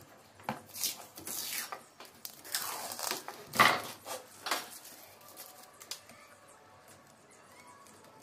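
Sandpaper rubbed by hand over the wooden face of a cricket bat in several short scratchy strokes, stopping about five seconds in.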